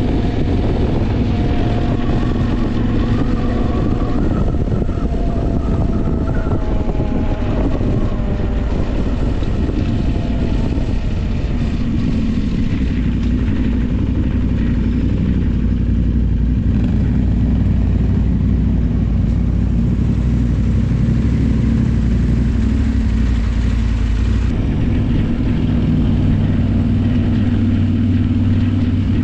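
Motorcycle engine running while riding. Its pitch rises and falls with the throttle in the first several seconds, then settles into a steadier drone.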